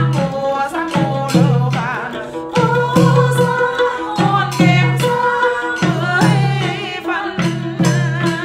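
Vietnamese chầu văn singing: a young man's voice sings with a wavy vibrato over a đàn nguyệt (two-string moon lute) plucking repeated low notes. Sharp wooden clapper strikes keep time at intervals.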